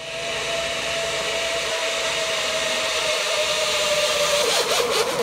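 Zipline pulley trolley running along a steel cable: a steady whirring hiss with a held whine, growing louder as the rider comes closer. Near the end the whine wavers.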